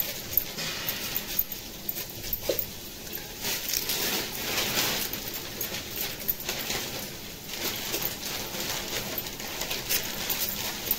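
Fish being scraped and cut against the steel blade of a boti: irregular scratchy strokes with small clicks.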